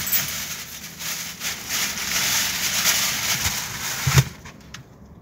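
Crackling, crinkling rustle close to the microphone for about four seconds, ending with a thump, after which it goes much quieter.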